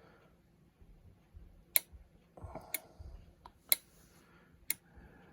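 Sharp, evenly spaced clicks about once a second as a pinball MPU's solenoid test steps through the coil outputs on a bench test rig.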